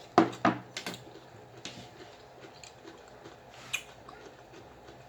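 Close-up crunching and chewing of pickles: several sharp crunches in the first second, then sparser smaller ones and one more crunch a little before four seconds in.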